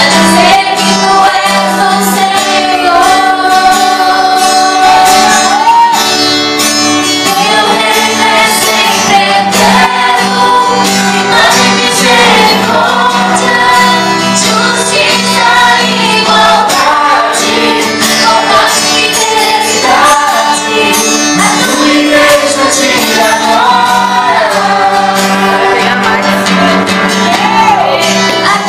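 A woman singing a gospel worship song into a microphone through the PA, over amplified instrumental accompaniment, holding some long notes.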